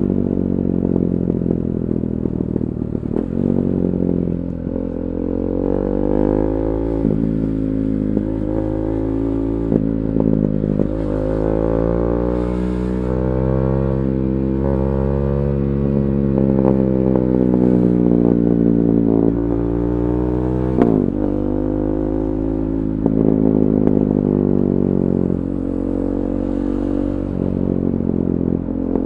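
KTM 390 Duke's single-cylinder engine running through an Akrapovic Moto2 slip-on exhaust with the catalytic converter removed. Its pitch rises and falls with the throttle, with a sharp drop about 21 seconds in.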